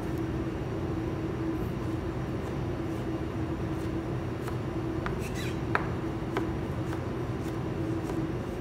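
A chef's knife dicing tomato on a plastic cutting board, with scattered, irregular light taps of the blade on the board. Under it runs a steady machine-like hum with a constant low tone, the loudest sound throughout.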